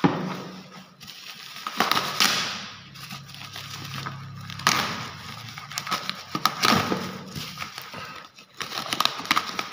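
Plastic courier bag and its clear plastic wrap crinkling and rustling as hands grip and pull at it to open the parcel, in irregular crackly bursts.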